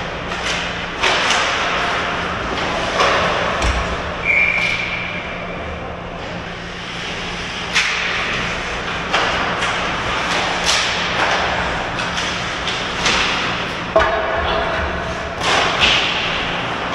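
Ice hockey play in a large echoing rink: skates scraping the ice under repeated sharp clacks and thumps of sticks and puck. About four seconds in, a steady whistle of about a second and a half, a referee's whistle stopping play ahead of a faceoff.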